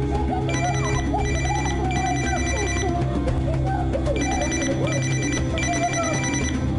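Mobile phone ringtone ringing in pairs of electronic bursts, each just under a second long, with short pauses between them. Tense background music plays underneath.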